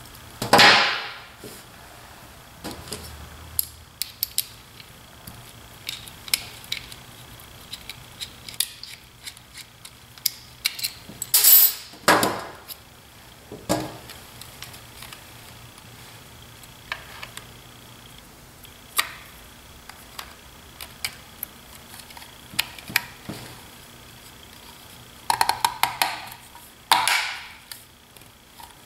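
Scattered clicks, taps and rustles of hands working small parts on a tabletop: a plastic USB plug housing, pliers and a flat cable being handled and set down. A few louder scraping rustles stand out just after the start, midway, and twice near the end.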